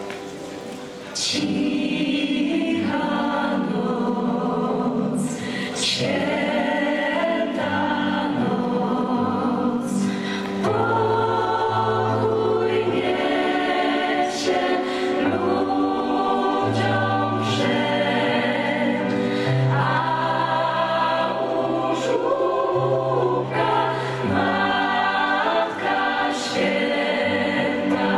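Gospel choir singing in harmony, accompanied by keyboard and drums. The music rises to full volume about a second in.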